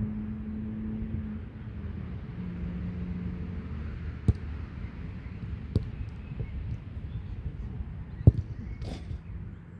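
Low engine hum with a steady rumble that fades out over the first few seconds, followed by three sharp knocks spaced a second or two apart.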